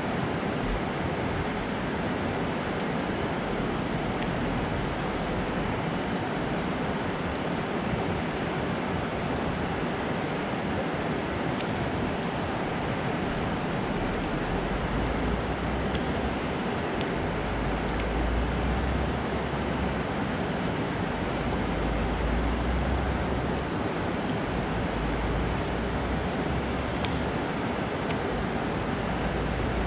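Water pouring over a concrete dam spillway and churning in the pool below: a steady, even rush. From about halfway through, a low rumble of wind on the microphone joins it.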